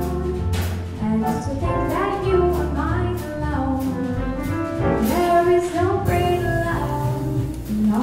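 Live small-group jazz: a woman singing a ballad melody over grand piano, upright bass and drum kit, with the cymbals keeping steady time.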